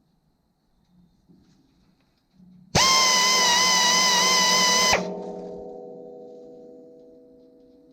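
Grinder wheel held against a sawmill blade tooth for about two seconds, a loud, steady, high-pitched grinding whine that starts and stops abruptly, the three-count grind used to sharpen each tooth. A steady ringing follows and fades away over the next few seconds.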